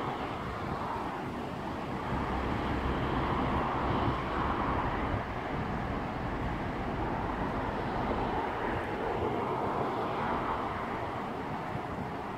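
Distant rumble of a Serbia Cargo class 661 (EMD G-16) diesel shunting locomotive working in the yard, steady, swelling a little louder for a few seconds at a time.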